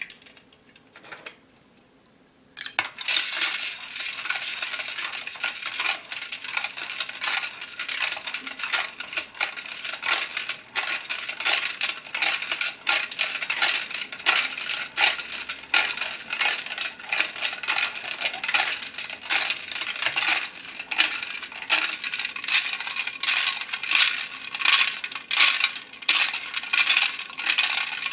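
Many small plastic pearl beads clattering and rattling together against a hard container, a dense run of tiny clicks that starts about two and a half seconds in after a couple of single clicks.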